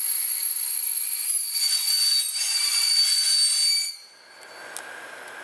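Train brakes squealing, high-pitched and steady, as the train slows into a station. The squeal cuts off suddenly about four seconds in as the train comes to a stand, leaving a much quieter steady background.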